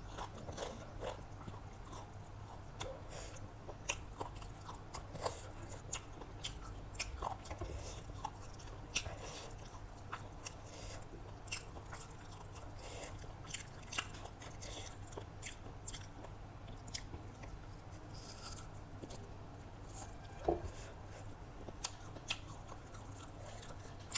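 A person chewing and biting food (chicken biryani and salad), with many small, irregular mouth clicks and crunches.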